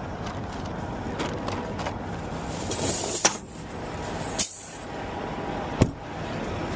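Steady rush of passing highway traffic, with three sharp clicks or knocks about three, four and a half and six seconds in.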